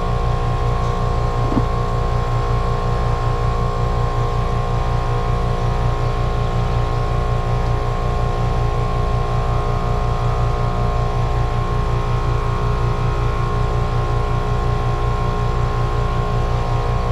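Outdoor unit of a two-stage Trane heat pump running with a steady machine hum and a set of constant tones. The gauges read the same pressure on both sides while it runs, and the technician finds the system nearly empty of refrigerant.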